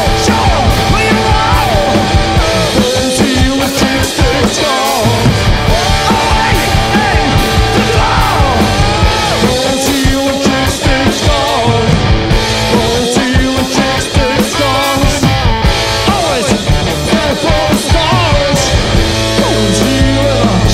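Loud, continuous punk-blues rock played live by a two-piece band: electric guitar and drum kit.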